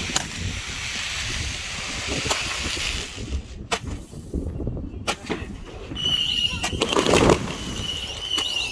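Consumer fireworks going off: a hissing spray for the first few seconds with scattered sharp pops, then about six seconds in a steady high whistle, with a loud burst about a second later.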